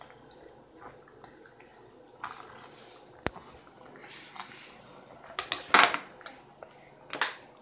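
Scattered light clicks, taps and rustles of a toddler eating at a plastic high-chair tray with a baby spoon and bowl. There is a sharp click a little over three seconds in, and the loudest rustle comes near six seconds.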